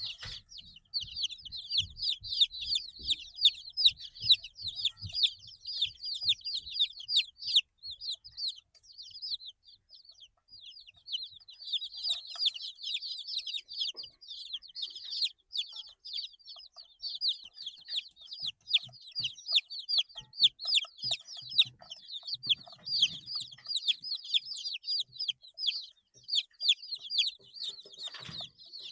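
A group of 8-day-old chicks peeping continuously: many short, high, downward-sliding peeps overlapping in quick succession, with a brief lull about a third of the way in.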